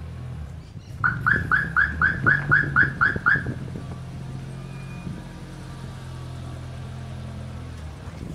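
A rapid run of about nine loud, identical chirps, roughly three a second, each a short rise-and-fall tone, starting about a second in and stopping after two and a half seconds, over a steady low hum.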